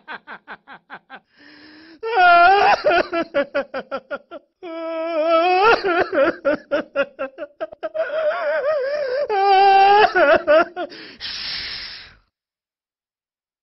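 A man laughing wildly, in long bouts of quick pulses with a wavering, wailing pitch. Near the end he lets out a drawn-out "shhh".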